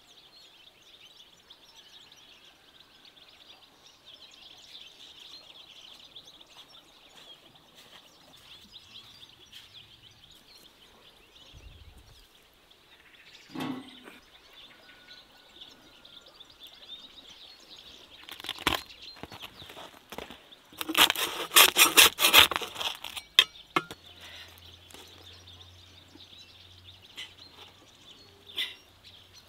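Quiet countryside ambience with faint bird chirps, broken by a few short bursts of rustling. The loudest is a couple of seconds of rapid rustling clicks about two-thirds of the way in.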